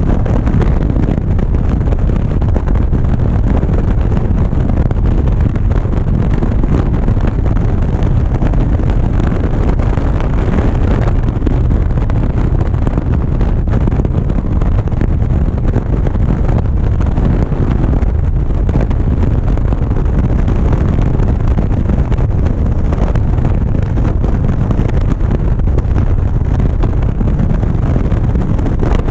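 Motorcycle cruising steadily at highway speed, heard as a constant low wind rumble buffeting the action camera's microphone, with engine and road noise blended in.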